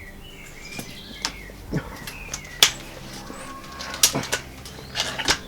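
BSA Meteor Evo break-barrel spring air rifle being handled, loaded and fired with a rubber bung in the muzzle: a string of sharp clicks and knocks, the loudest about two and a half seconds in. Faint bird chirps sound in between.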